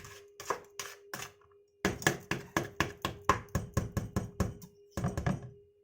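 A mixing utensil knocking against a bowl in quick regular strokes, about four a second, as the cookie batter is beaten by hand.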